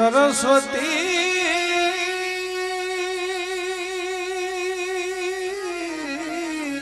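Male devotional bhajan singer singing the word 'Saraswati' to harmonium accompaniment. He opens with a few quick ornamental turns, then holds one long note with a wavering vibrato that slides down near the end.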